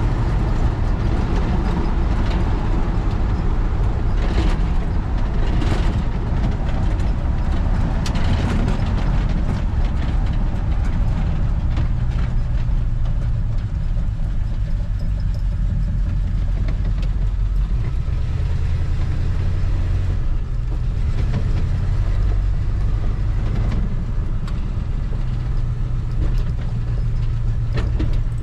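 1973 Chevy C20 pickup driving, heard inside the partly stripped cab: a steady low engine and road drone with a few sharp knocks and rattles from the loose cab about four to eight seconds in.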